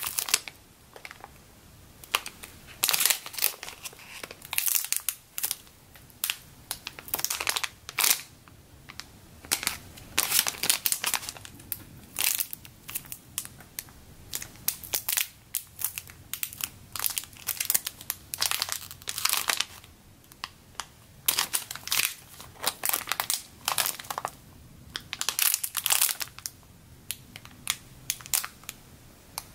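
Clear plastic bags around squishy toys crinkling in the hands, in many short, irregular bursts as the bagged toys are picked up, held and turned.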